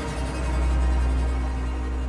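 Background soundtrack music over a deep, steady low drone that swells to its loudest about a second in.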